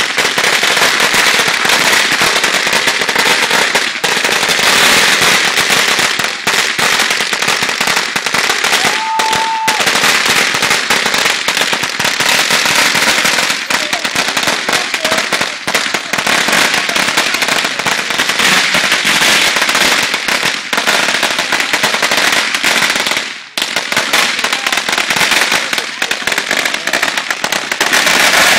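Firecrackers and fireworks going off at ground level: a dense, unbroken crackle of rapid bangs, with a short whistle about nine seconds in.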